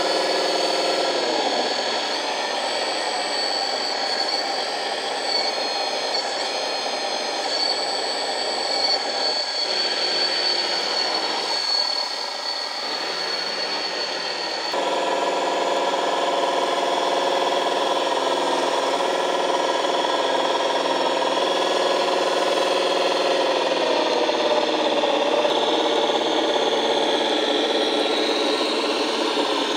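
A 1/14-scale RC4WD DXR2 hydraulic bulldozer model running. Its ESS-Dual sound module plays a simulated diesel engine through its speakers, mixed with the whine of the model's own motors. A steady high whine runs through the first half, and about halfway the engine note changes and grows louder.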